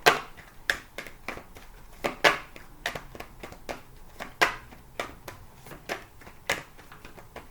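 A deck of oracle cards being shuffled by hand: a run of sharp, irregular card snaps and taps, about two a second.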